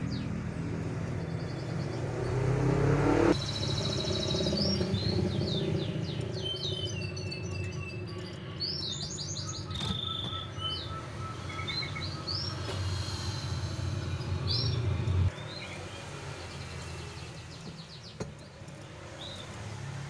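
Domestic canaries chirping and singing in short, high, quick trills. A low background rumble runs under them and cuts off about fifteen seconds in.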